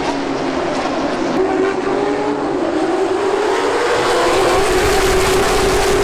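NASCAR late model stock car's V8 engine running on track, heard from inside the car over road and wind noise. Its note climbs over the first few seconds and drops back about four and a half seconds in.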